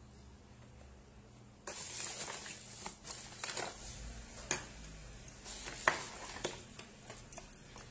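Rustling and light clicks and knocks of things being handled close to the microphone, starting suddenly about a second and a half in.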